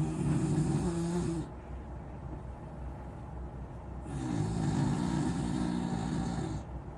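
A corgi snoring heavily with gasping snores: one about a second and a half long at the start, then a longer one from about four seconds in lasting over two seconds, each a low rattling buzz with a hiss above it.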